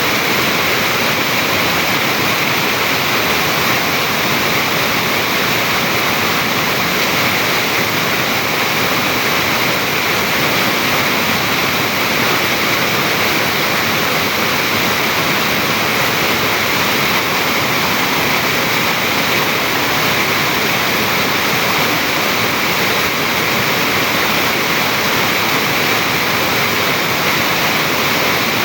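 Stream water rushing and splashing over rock in a steady, unbroken flow.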